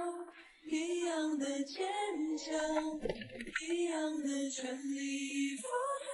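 A woman singing a slow melody with long held notes: a song playing as background music.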